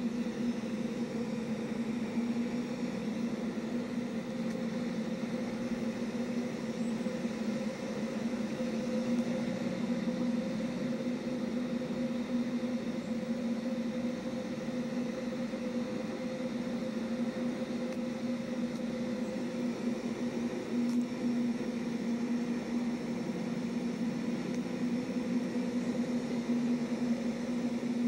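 Steady low mechanical hum with an unchanging pitch over a constant background noise.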